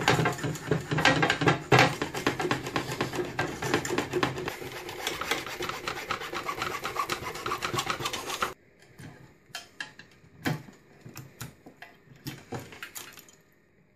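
Fast, continuous scraping and rubbing as a hand tool works parts of the machine's plastic and metal assembly loose. It stops abruptly about eight and a half seconds in, and a few scattered clicks and knocks follow.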